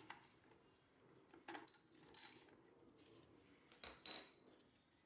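Faint metal clinks of a hand tool on the motorcycle's oil drain bolt as it is loosened: about five separate clinks, a couple with a short high ring.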